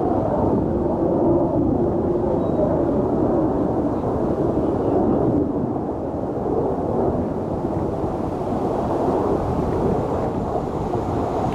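Two Dassault Mirage 2000N jets flying in formation, their turbofan engines a steady deep rumble, easing slightly about halfway through.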